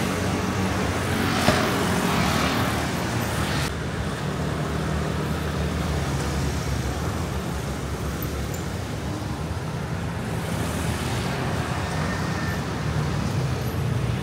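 City street traffic: a steady low hum of vehicle engines, with louder traffic noise in the first few seconds that drops off sharply about four seconds in.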